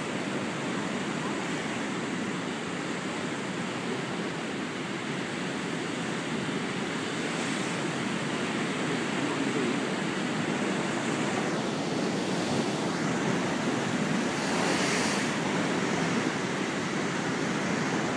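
Storm surf surging and breaking over a harbour pier, a steady rush of rough sea that grows a little louder toward the end, with a brighter hiss of a breaking wave about two-thirds of the way through.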